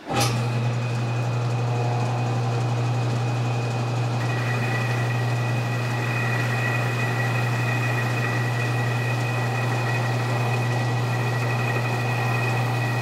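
Metal lathe starting up and running with a steady low hum while a tool bit cuts the muzzle end of a steel rifle barrel, turning a recessed crown and throwing curling chips. A second thin high whine joins about four seconds in.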